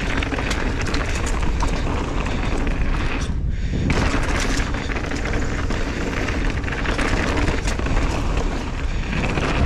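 Mountain bike riding fast down a dirt downhill trail: wind buffeting the microphone, low rumble from the tyres, and the bike rattling over rough ground. The noise briefly drops away about three and a half seconds in, then comes back.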